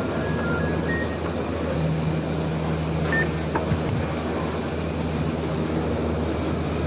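Gondola lift station machinery running with a steady low hum and rumble, with a short high squeak about three seconds in.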